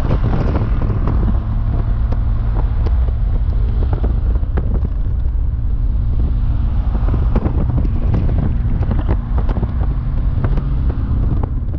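Wind buffeting and crackling on the microphone over the steady low drone of a car cruising at motorway speed.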